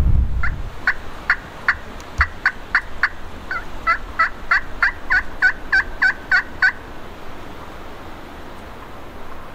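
Hen turkey yelping: a series of about twenty short, two-toned yelps that comes faster from the middle on, then stops.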